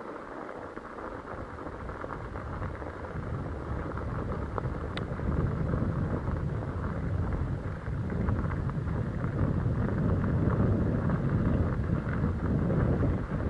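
Bicycle rolling downhill on a snowy mountain trail: a steady crunch and rattle from the tyres on snow and ground, with wind rumbling on the microphone that builds up over the first half as the speed picks up.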